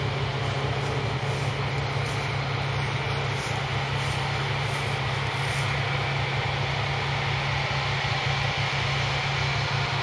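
New Holland CX8090 combine harvester working through barley, its engine and threshing machinery giving a steady, unbroken low drone.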